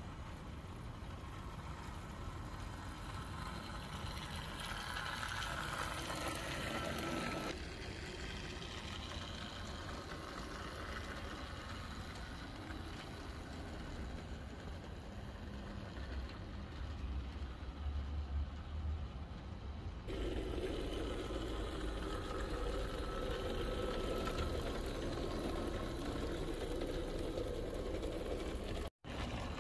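16mm-scale model tractor locomotive running along a 32mm-gauge garden railway, a steady low mechanical hum. Its level and tone shift twice, and it drops out briefly near the end.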